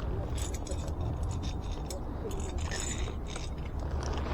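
Scattered light metallic clicks and scrapes of small tools or parts being handled, over a steady low rumble.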